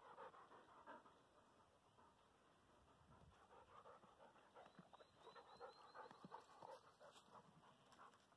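Faint, quick panting of an Alapaha Blue Blood Bulldog.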